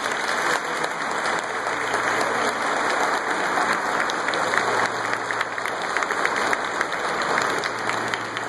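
A large seated audience applauding, a steady, dense patter of many hands clapping.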